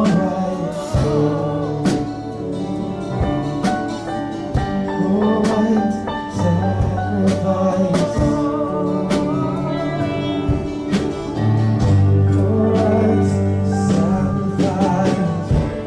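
Live church worship band playing a slow song, with held bass and chord notes, regular drum hits and voices singing over it.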